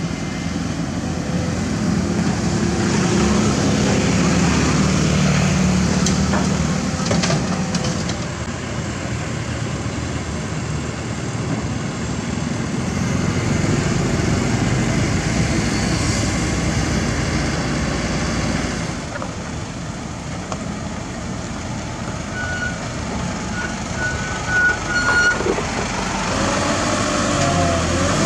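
Diesel engines of a Kobelco SK200 excavator and a small dump truck running steadily as the soil-loaded truck drives off. A short run of high beeps comes in about three quarters of the way through.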